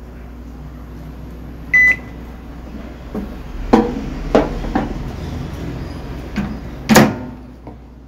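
Opened-up Philco microwave oven on a test run after its high-voltage fuse was replaced, running with a steady low hum. Its control panel gives one short beep, then a few sharp clicks and knocks follow over the hum, the loudest near the end.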